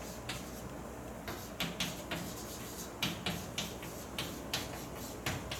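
A run of light, sharp taps and clicks at irregular intervals, about a dozen, over a steady low room hum.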